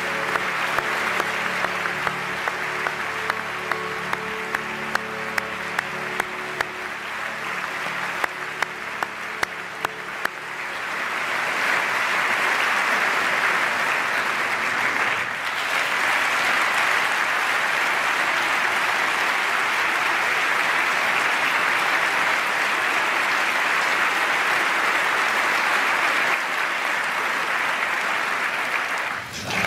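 Large audience giving a standing ovation, many hands clapping. The applause swells louder and denser about ten seconds in and holds there, with a brief dip about fifteen seconds in and another just before the end.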